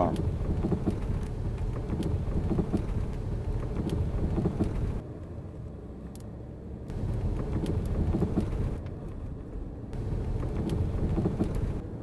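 Knocking from a car's front suspension, heard from inside the cabin as short irregular clunks over a steady low road rumble while the car pulls away and gathers speed. The owner traced the knock to the steering rack, its shaft loose inside its bushing.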